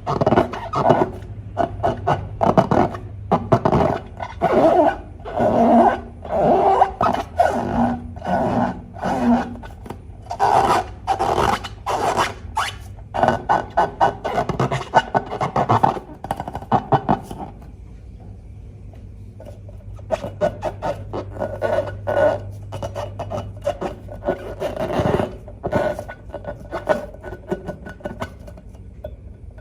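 Slime being squished and stretched by hand: quick, irregular sticky squelching clicks in dense runs, thinning out after about the middle.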